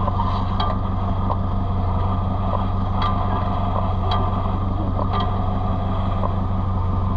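Engine of a 4x4 off-road vehicle running in a steady, even drone while driving, with a few short knocks and rattles.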